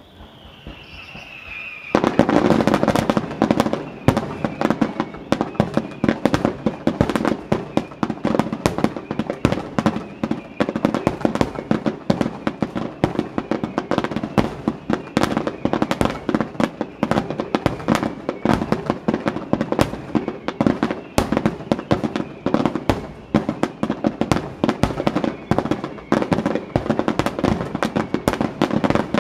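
Aerial fireworks: a falling whistle, then from about two seconds in a dense, unbroken barrage of rapid bangs and crackles, many per second.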